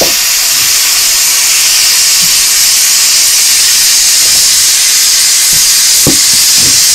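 Pressure cooker on a wood fire hissing loudly and steadily as it vents steam: it is up to pressure and cooking.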